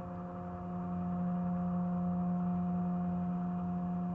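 Towboat's diesel engines droning steadily across the river: a constant low hum with a few fainter, higher steady tones above it.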